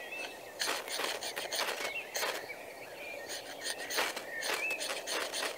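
Sharpened spine of a D2-steel bushcraft knife (Jars Irbis) scraped hard down a ferrocerium rod in a run of short rasping strokes, throwing sparks into a nest of fatwood shavings to light it.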